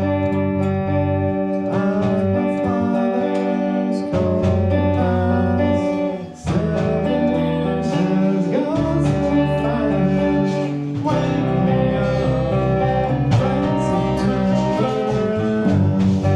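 Music led by guitar, plucked and strummed notes and chords playing on without a break, with a brief drop in level about six seconds in.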